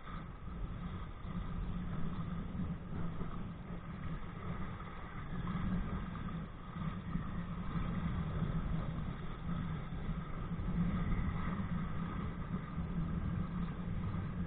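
Steady low rumble of wind buffeting a body-worn camera's microphone, with water rushing past a kite-pulled kayak; it swells and eases slowly.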